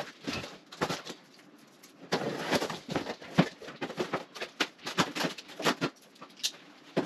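Cardboard box being opened and handled: irregular rustling, scraping and knocking as the flaps are pulled open and the packaging inside is moved, with a short lull about a second in.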